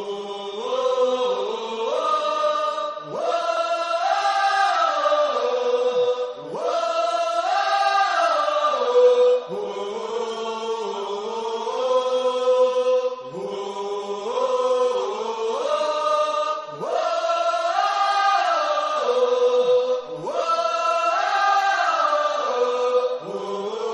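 Background music of a group of voices chanting or singing in unison, a stepwise melody in phrases of about three and a half seconds that repeat.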